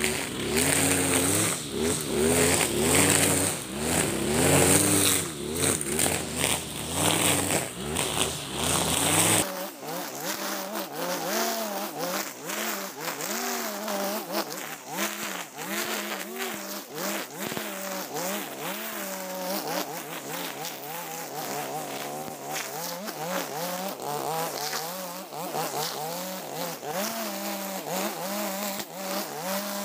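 Husqvarna 542RBS backpack brush cutter's 42 cc two-stroke engine running, its pitch rising and falling as the throttle works while the 2.4 mm square nylon line cuts tall grass. About ten seconds in, the sound becomes quieter and thinner, losing its low end.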